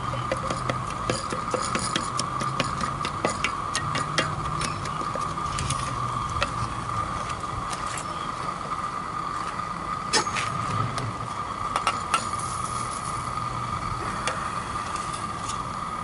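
A wooden spoon stirring a stainless steel saucepan of lye and melting silica gel crystals, clicking and scraping irregularly against the pan, over a steady hiss from the propane furnace burner beneath it.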